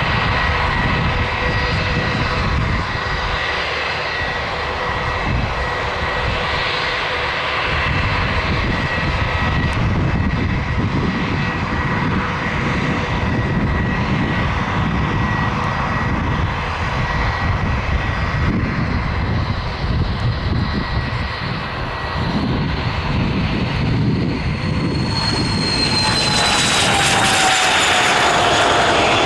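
Fairchild Dornier 328JET's two Pratt & Whitney Canada PW306B turbofans at takeoff power: a steady whine over a rumble during the takeoff roll. Near the end the sound grows louder and the whine falls in pitch as the jet passes close and lifts off.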